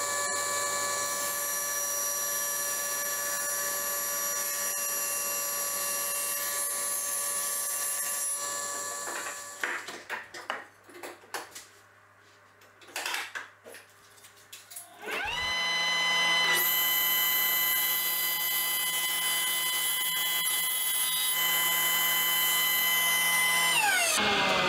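Table saw motor running steadily while a plywood taper is cut with a sled jig, then dying away about 9 seconds in. Light clatter of the wood being handled follows. About 15 seconds in the motor starts again with rising pitch, runs steadily, and winds down with falling pitch near the end.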